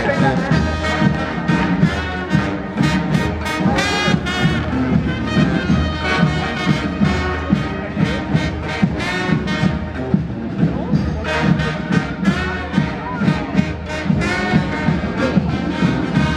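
Street band playing brass music: horns and trombones over a low bass line and a steady beat.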